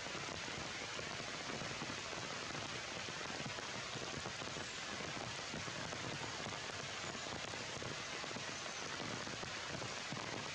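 Heavy rain falling steadily on forest leaves, an even hiss with no breaks.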